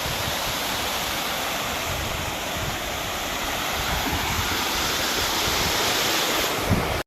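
Waterfall pouring steadily into its pool, a constant rushing of water.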